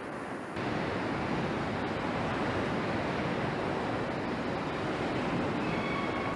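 Steady rushing noise of transmission assembly-line machinery, starting abruptly about half a second in. A few faint high tones join near the end.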